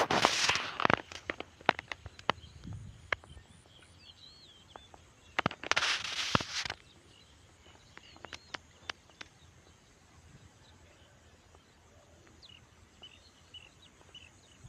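Two bursts of close rustling, each about a second long, with scattered sharp clicks and snaps between them. Small birds chirp faintly in the background.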